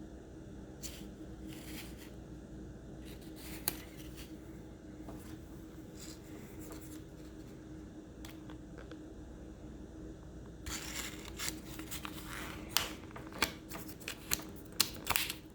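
Paper pages of a small instruction manual being handled and turned: faint rustling at first, then louder rustling with sharp paper flicks in the last few seconds, over a faint steady hum.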